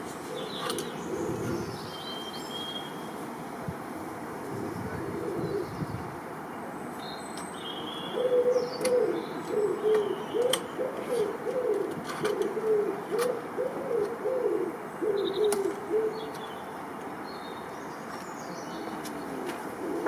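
A pigeon cooing, a run of repeated low coos from about eight seconds in until about sixteen, with small birds chirping now and then and a few light clicks.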